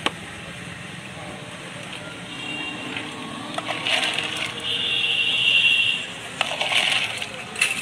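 Background voices and street noise, with a few sharp knocks and clinks and a steady high tone held for about a second and a half midway.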